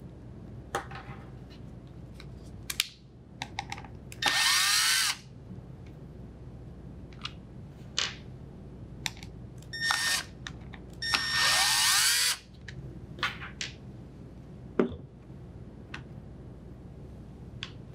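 Cordless drill driver whirring in three short runs, the longest about a second and a half, backing out the screws on a refrigerator condenser fan motor cover. Small clicks and knocks of the parts being handled fall between the runs.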